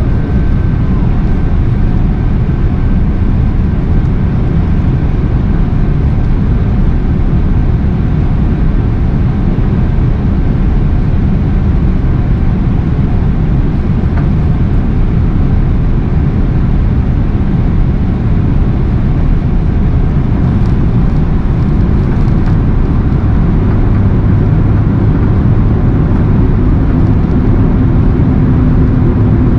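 Steady cabin noise of an airliner in flight, heard from a window seat: jet engines and rushing air. A low drone grows a little stronger in the last few seconds.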